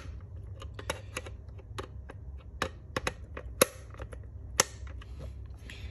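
Small screwdriver turning the plastic rotary tone-selection dial on the back of a fire alarm sounder: a string of small, irregular clicks, with two sharper ones about three and a half and four and a half seconds in.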